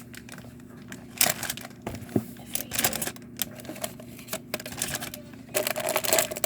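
Irregular light clicks and rustles of craft-kit pieces and packaging being handled, over a faint steady hum, with a denser stretch of rustling near the end.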